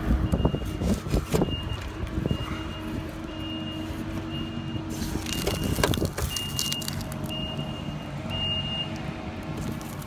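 A vehicle's reversing alarm beeping evenly, about three beeps every two seconds, over a steady low engine hum. Scattered close knocks and rustles of handling sound over it.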